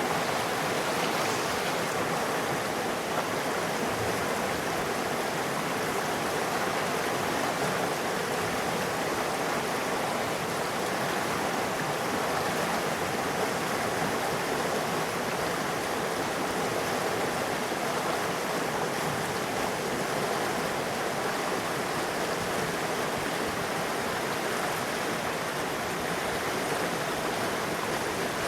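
River water rushing steadily over rocks, a constant even noise with no change.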